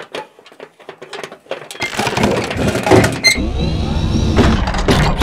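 Mechanical clicking that thickens, about two seconds in, into a dense clattering whir with a few rising whines, like gears or a ratchet working.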